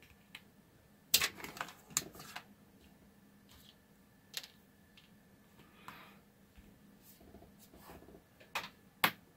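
Scattered light clicks and taps of a small TP4056 charging board and hookup wires being handled and set down on a workbench, a few sharp ones about a second in, around two seconds and near the end.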